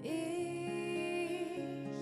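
A slow, gentle song: a long held sung note over soft instrumental accompaniment.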